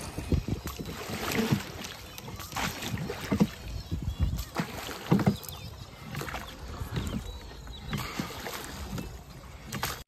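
Small wooden rowboat being rowed with a single oar lashed to a peg: the oar blade dips and splashes in the river, with irregular knocks roughly once a second.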